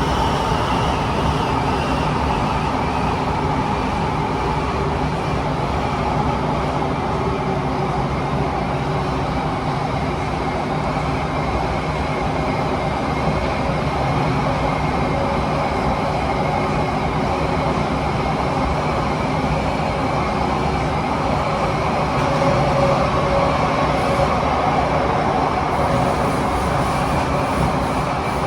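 Interior of a Kawasaki-CRRC Sifang T251 metro car running at speed through a tunnel: loud, steady wind noise over wheel and track rumble. A motor whine falls in pitch over the first few seconds, then holds steady.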